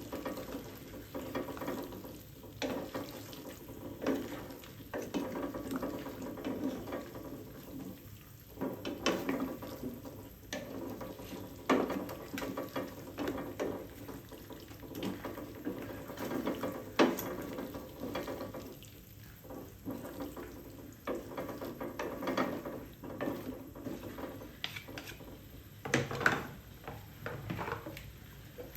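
Kitchen work with cookware: irregular clinks, knocks and scraping of pots and utensils, with water sounds.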